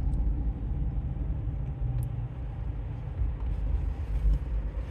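Steady low rumble inside a car's cabin, with engine and road noise.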